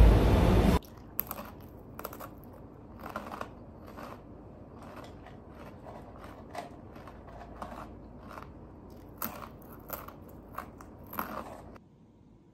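Busy background noise that cuts off abruptly under a second in, giving way to a quiet room with scattered, irregular small clicks and crackles, which stop shortly before the end.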